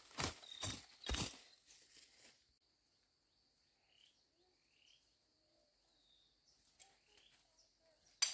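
Crunching strokes in dry vegetation, about two a second, that stop after about two seconds. Then a steady high insect drone and a few short rising bird chirps, with one sharp click near the end.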